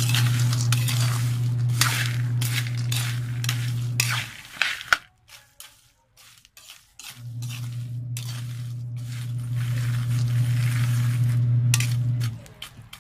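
Fried peanuts rattling and clattering against a container as they are mixed, in two stretches with a quiet pause around the middle. A steady low hum runs under both stretches.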